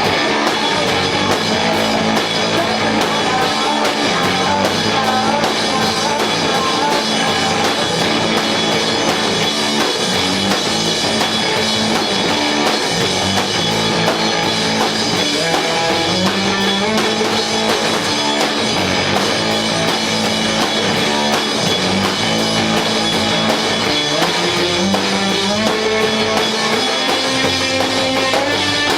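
Rock band playing live, with electric guitar, bass and drum kit, loud and continuous.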